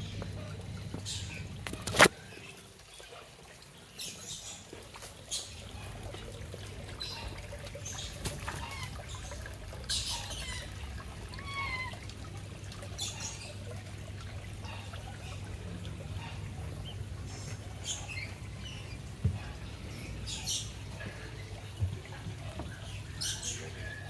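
Bird park ambience: scattered chirps and squawks from several birds over a steady low hum, with one sharp click about two seconds in.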